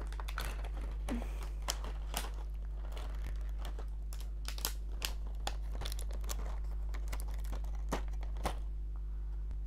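Clear plastic packaging crinkling and crackling as it is handled, with many short sharp clicks scattered through, over a steady low hum.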